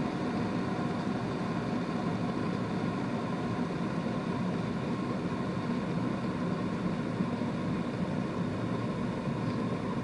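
Kitfort KT-656 glass electric kettle coming to the boil: a steady noise of water bubbling and churning inside as it heats to 100 degrees.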